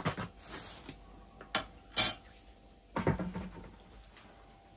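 Metal utensils clinking against a saucepan as flour is spooned into mashed potato, the loudest a sharp clink about two seconds in. About three seconds in, a cluster of duller knocks and scrapes as a metal potato masher works the flour into the potato in the pan.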